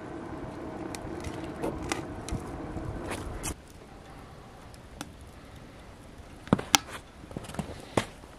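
Wood fire burning in a homemade rocket stove. A steady rushing of the flames for about three and a half seconds, then a sudden drop to a quieter hiss. A few sharp crackles and pops follow, mostly near the end.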